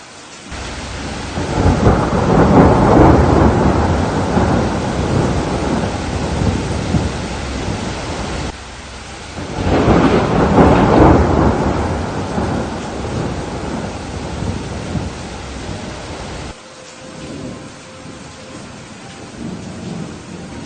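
Rain falling with two long rolls of thunder, the first building about half a second in and the second about nine and a half seconds in. Each rumble cuts off abruptly rather than dying away, leaving steady rain.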